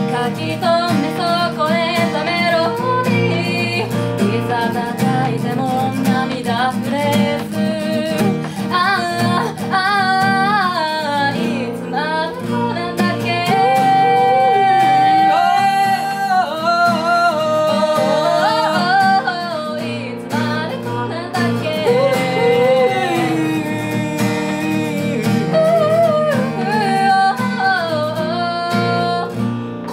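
Live acoustic song: an acoustic guitar played under singing, with a woman's voice leading. About halfway through, the voice holds one long note.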